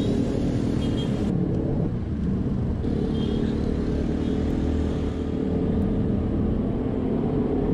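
Vespa GTS i-get 150 scooter under way, heard from the rider's seat: a steady engine drone with wind and road noise. The drone shifts in pitch a little about a second in and again near three seconds.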